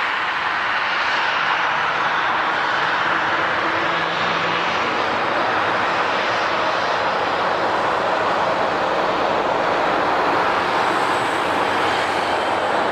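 Airliner engines running, a steady loud rush of noise with no rise or fall.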